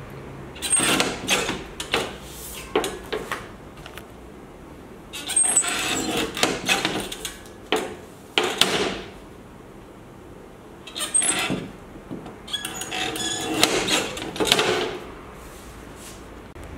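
Lever-arm guillotine photo cutter chopping a sheet of passport photos: several bursts of sharp clacks and knocks as the blade arm is worked down and up, with short pauses between bursts.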